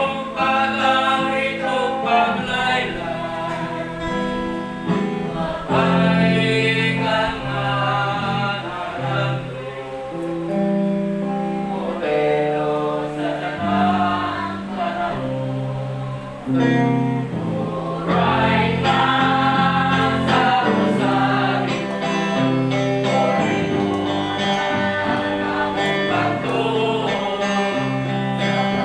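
Group of voices singing a gospel song with guitar accompaniment, held bass notes changing under the melody.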